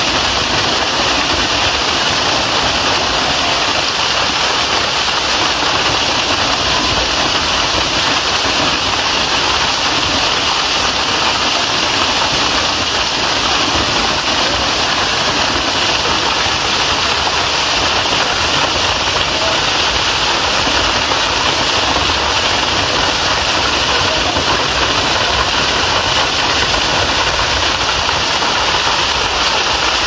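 Waterfall pouring down a rock face and splashing into a pool: a loud, steady rush of falling water.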